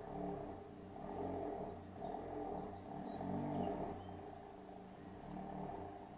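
Volkswagen MK7 Jetta's engine running at low speed as the car rolls slowly up the driveway, a low rumble that swells and eases several times. Birds chirp faintly in the background.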